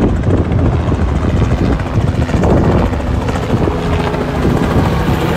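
Wind buffeting the microphone: a steady, loud, gusty low rumble.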